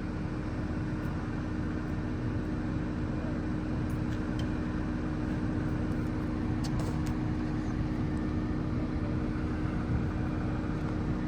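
Heavy diesel engine of a tree-removal crane running steadily, a constant low hum.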